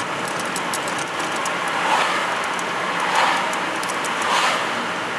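Steady road and tyre noise heard from inside a moving car, with three short swelling whooshes of oncoming cars passing, about two, three and four seconds in.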